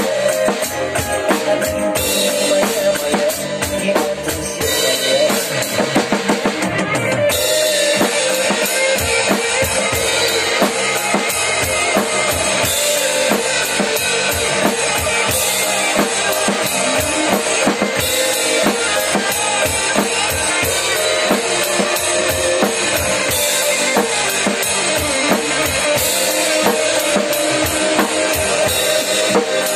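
Acoustic drum kit played with sticks along to a recorded pop song: steady bass drum, snare and cymbal strokes over the track's sustained instrumental music, with the cymbals getting fuller about seven seconds in.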